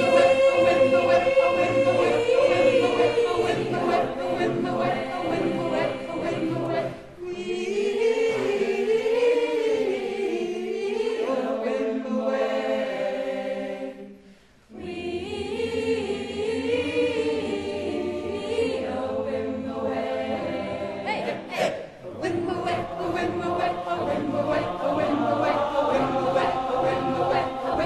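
Choir singing, the voices moving together in sung phrases, with a brief break about halfway through before the singing resumes.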